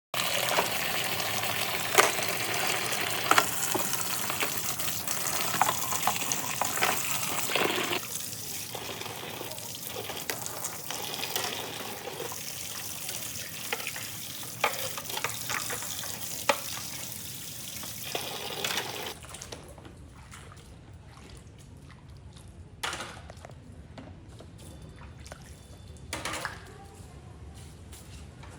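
Water running and splashing as parts of a robot vacuum cleaner are washed, with scattered clicks and knocks of the parts being handled. The water is loudest for the first several seconds; about two-thirds of the way through it gives way to quieter handling sounds with occasional knocks.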